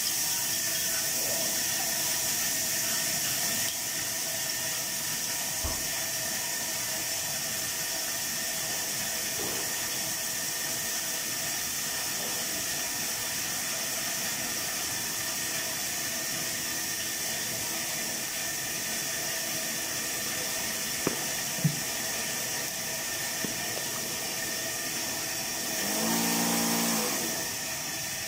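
Steady hiss of chicken cooking in its sweet sauce in the pan, with a few light clicks, and a short low hum about two seconds before the end.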